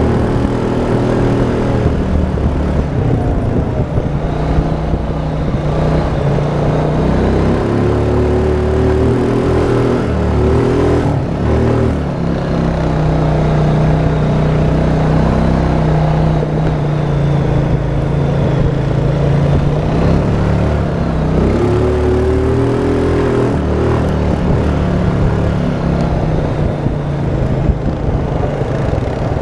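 Honda Rancher ATV's single-cylinder four-stroke engine running under changing throttle, its pitch rising and falling several times as it speeds up and slows on the trail.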